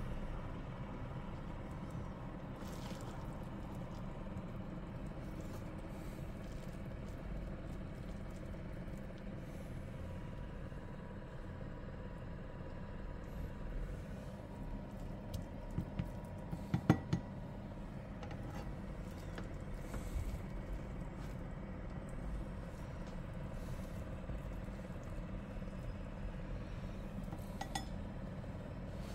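Kitchen utensils clinking and tapping against a non-stick frying pan and a ceramic plate as rice is served out with a spatula: a cluster of sharp clinks a little past halfway, the loudest near the middle of it, and a few more later. A steady low hum runs underneath.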